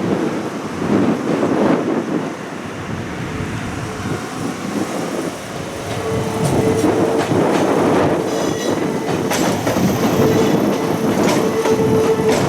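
Iga Railway train passing over a railroad crossing: a loud rumble of wheels on rail, with a steady whine coming in about halfway through and clicks of the wheels over rail joints in the second half.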